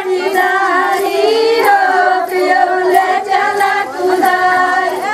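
Women singing together in held, wavering notes over a steady beat of sharp strikes at about two a second, typical of a North Indian wedding dance song.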